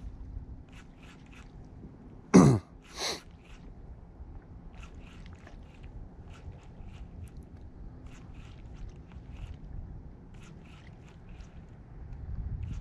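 A man coughs twice in quick succession: a loud cough whose voiced pitch falls steeply, then a weaker one about half a second later. It is the cough of a head cold.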